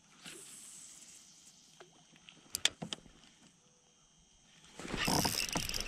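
Spinning reel being handled and cranked: a few sharp clicks about two and a half seconds in, then a rushing noise near the end.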